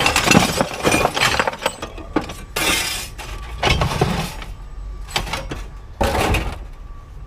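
Pieces of scrap metal clattering and clanking against each other as scrap is dumped and sorted, in several noisy bursts with a last loud burst about six seconds in.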